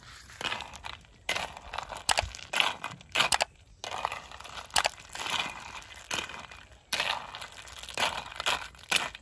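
Steel bowl scraping and clattering against a black iron wok full of snails in their shells over a wood fire, the shells rattling and crunching under it, in irregular scrapes with sharp knocks between.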